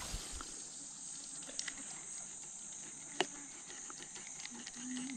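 Steady high-pitched chorus of insects from the riverside forest, with a single sharp click about three seconds in.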